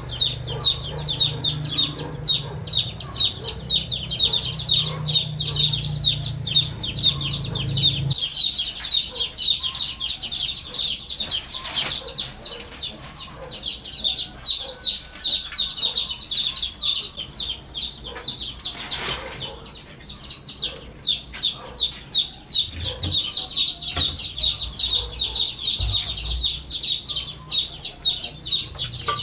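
Chickens calling in a dense, continuous chorus of short, high peeping and clucking notes, thinning out briefly around the middle. A low hum underneath cuts off suddenly about eight seconds in.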